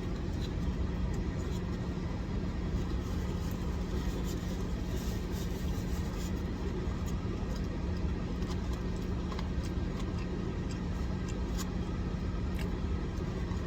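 Steady low drone with a constant low tone, like a running vehicle heard from inside, with a few faint clicks from eating.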